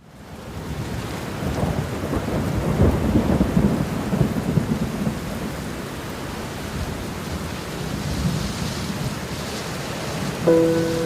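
Heavy rain falling, rising out of a brief silence at the start, with a rolling rumble of thunder in the first few seconds. Near the end a few steady musical tones come in over the rain.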